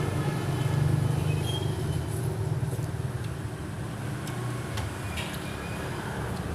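Road traffic: a motor vehicle's engine rumbling close by, loudest in the first second or two and then easing off.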